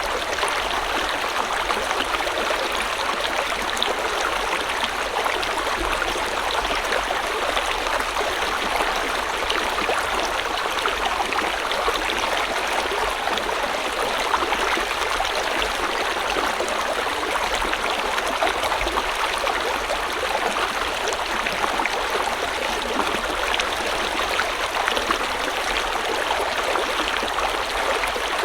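River water flowing steadily, an even, unbroken rushing.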